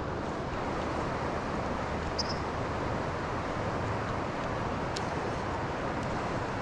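Steady rush of flowing river water, with a short high chirp about two seconds in.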